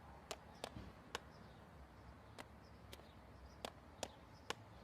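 Faint footsteps on a hard sidewalk: about eight sharp, irregularly spaced taps over a low rumble.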